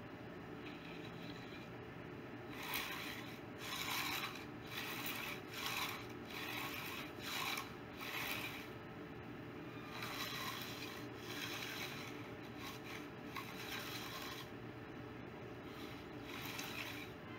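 A concrete finishing hand tool scraping back and forth along the edge of a fresh concrete slab: a run of short rasping strokes, about one a second, stronger in the first half and lighter after.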